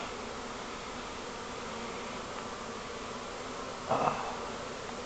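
Honey bees from a wild colony, its nest just cut open, buzzing steadily around the comb. A short louder sound comes about four seconds in.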